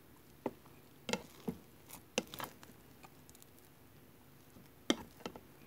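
Rice paddle scooping and pressing cooked glutinous (sticky) rice against the pot: scattered soft taps and scrapes, several in the first two and a half seconds, then a lull, then two more near the end.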